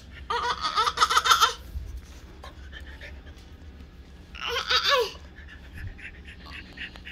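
A young child laughing in two bursts of quick, high-pitched laughs: about a second's worth near the start, and a shorter one about four and a half seconds in.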